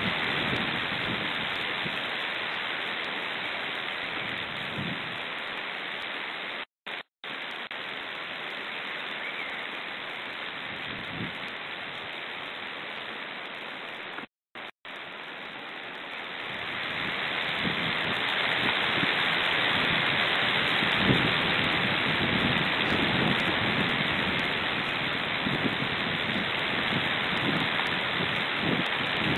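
Strong steady hiss of wind overloading the nest camera's microphone. The sound cuts out briefly a few times, then grows louder in the second half with low gusty rumbles.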